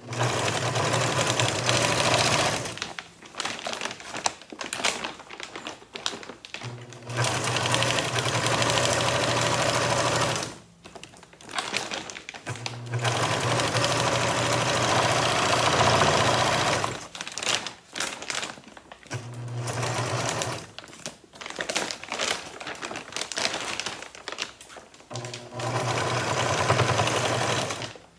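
Electric home sewing machine stitching through a woven feed sack in runs of a few seconds, stopping and starting about five times as the seam goes around the bag's top edge. Short clicks and knocks fill the pauses between runs.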